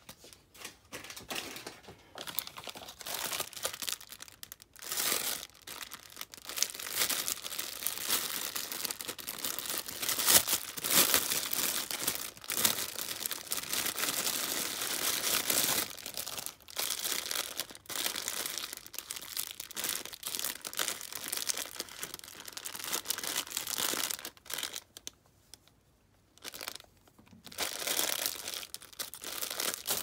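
Clear plastic packaging bags of hair accessories crinkling and rustling as they are handled and opened, stopping briefly a few seconds before the end.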